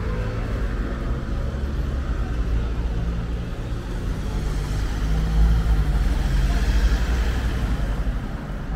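City road traffic: cars driving past close by at a junction, a steady low engine rumble with tyre noise. It swells past the middle as a car passes near, then eases off.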